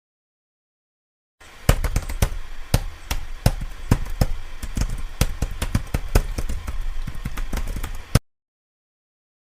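Computer keyboard typing: a fast, irregular run of key clicks, starting a little over a second in and stopping abruptly near the end.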